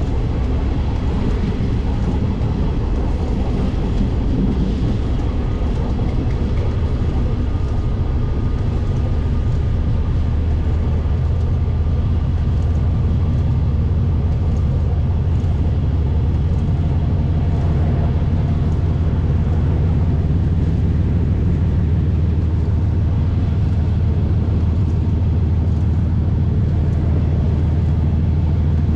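Diesel locomotive of a heavy coal train running steadily on the move, heard from the front of the locomotive: a constant low engine hum with rail and running noise, the hum growing heavier about halfway through.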